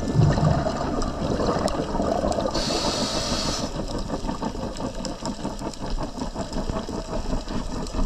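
Scuba regulator breathing heard underwater: a low, crackling rumble of exhaled bubbles, broken by a hiss of inhaled air about two and a half seconds in that lasts about a second.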